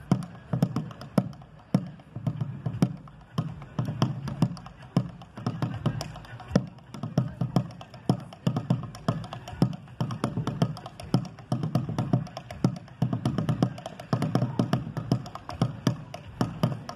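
Malambo rhythm on a bombo legüero: fast, even strokes, several a second, with sharp wooden rim clicks over deep drum hits.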